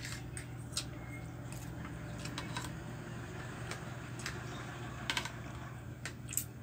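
Spoon and fork clinking and scraping on a ceramic plate of rice, a scattering of light clicks throughout, over a steady low hum.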